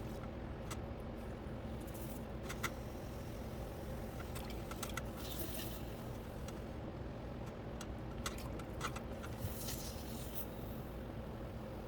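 Pottery wheel running with a steady hum, with scattered light clicks and two brief scraping hisses of tools or hands working the clay, about five seconds in and again near the end.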